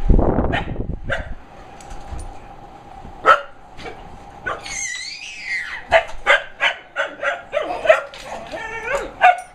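Dog barking and yipping excitedly in short sharp calls, about three a second over the last few seconds, with a high rising-and-falling whine about five seconds in. A loud knock comes at the very start.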